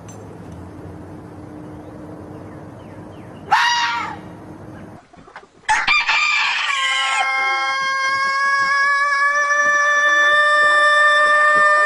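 Rooster crowing: a short call about three and a half seconds in, then, after a brief break, one very long, steady crow that starts about six seconds in and is still held at the end.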